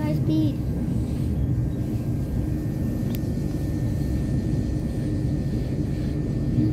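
Steady low rumble of an electric passenger train running along the track, heard from inside the carriage, with a single faint click about three seconds in.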